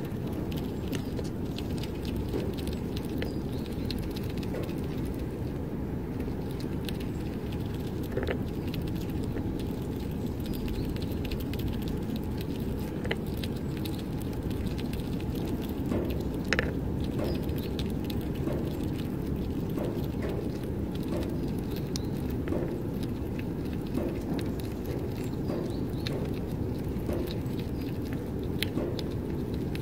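Red squirrel chewing and nibbling pine nuts up close: an irregular run of small crunching clicks over a steady low rumble.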